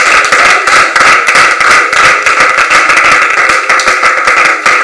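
Congregation clapping their hands in a quick, steady stream of claps during worship.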